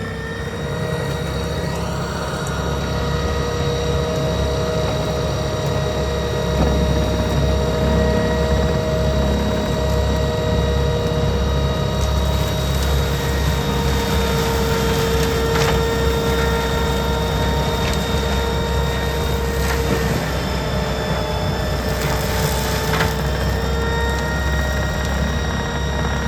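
Cat 287B skid steer's diesel engine running with a low rumble and steady whining tones, getting louder over the first few seconds, with a few short knocks and clatters later on.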